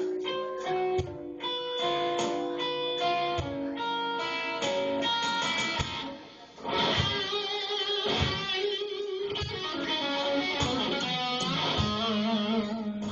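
Electric guitar playing a lead line of single picked notes, with a short break about six seconds in and held notes wavering with vibrato after it.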